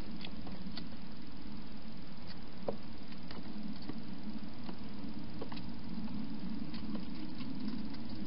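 Wild hedgehog eating at the bowls inside a plastic feeding station, heard as scattered, irregular small clicks over a steady low hum.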